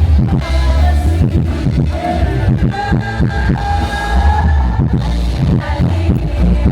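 Loud music with a heavy, pulsing bass beat and a singing voice.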